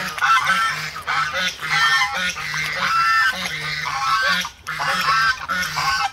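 A flock of domestic geese honking, many short calls overlapping one after another, with a brief lull a little past four seconds in.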